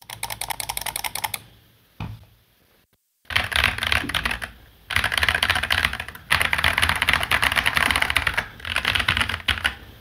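Typing test on a freshly built F68 mechanical keyboard kit (steel plate, plastic case, PCB foam) fitted with KTT Kang White V3 linear switches and thick PBT Cherry-profile keycaps. There is a quick burst of keystrokes, a single key press, and then fast continuous typing from about three seconds in, broken by a couple of brief pauses.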